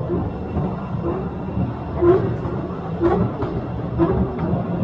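Open-car cave train rolling along its track through a rock tunnel: a steady low rumble with a short, regular beat about once a second.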